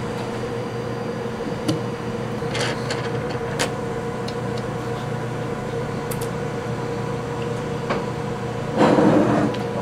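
Light clicks and taps of small metal parts being handled as the handwheel is worked off a Sherline lathe's lead screw, over a steady electrical hum, with a louder scrape near the end.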